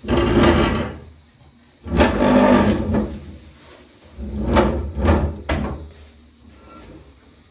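Kitchen chair being pushed and dragged across the floor, its legs scraping in three separate shoves, each about a second long.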